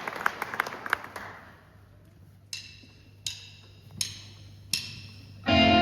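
Applause dies away, then four evenly spaced percussive clicks, about three-quarters of a second apart, count the band in. The band, led by guitar, comes in on the beat just before the end.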